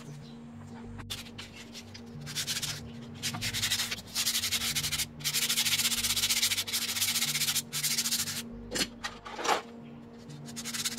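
Sandpaper or an abrasive pad rubbing in repeated hissing strokes against a rusty brake drum, scouring off rust. Two short squeaks come about two seconds before the end, and the rubbing starts again just after.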